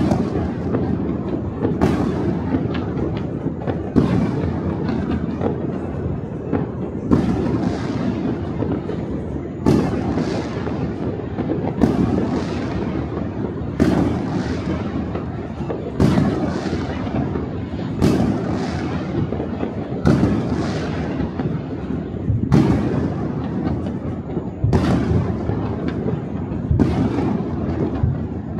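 New Year fireworks going off across a city: a continuous rumble of many distant booms and crackles, with a sharp bang about every two seconds that echoes away.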